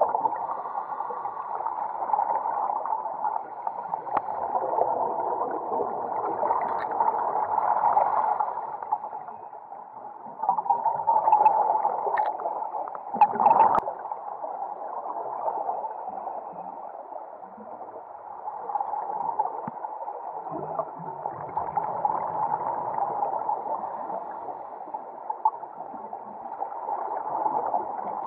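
Muffled underwater sound through a waterproof camera housing: scuba divers' exhaled bubbles gurgling, swelling and fading. A brief knock comes about halfway through.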